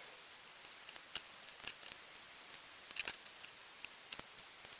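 Faint, scattered metallic clicks of piston-pin circlips being fitted into the pin bore of a Skoda 105 piston, with small knocks from handling the piston and connecting rod.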